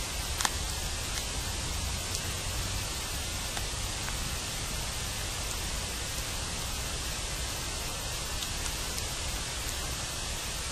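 Steady hiss of amplified background noise with a few faint, scattered clicks, heard while monitoring for sounds from underground. The uploader takes such sounds for signs of people in a tunnel about 20 m below ground.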